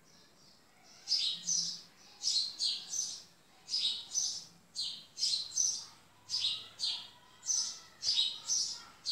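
Bird chirping: clusters of two or three quick, high chirps repeating about every second and a half, starting about a second in.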